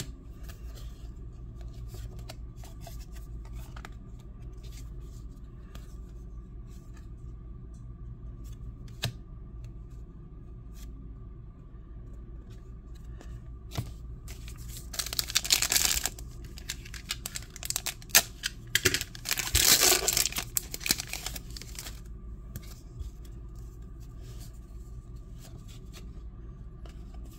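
A trading-card pack's wrapper being torn open and crinkled, in two loud rustling bursts about halfway through. Soft clicks of cards being handled come before and after.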